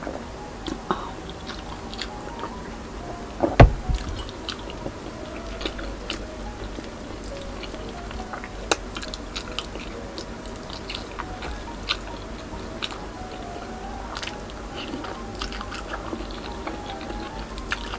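Close-miked eating sounds: chewing, lip smacks and small wet mouth clicks of someone eating fish and pork with her fingers, over faint background music. One loud knock about three and a half seconds in.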